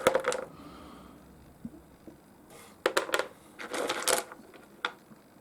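Small pieces of rough opal nobby clicking and clattering against each other as they are handled, in a few short bursts: one at the start, a cluster around three to four seconds in, and a single click near the end.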